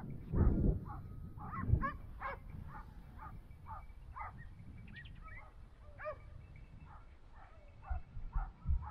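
Hunting dogs baying on a wild boar's trail: a steady run of barks from more than one dog, a few a second, with a few low thumps that are loudest about half a second in and again near the end.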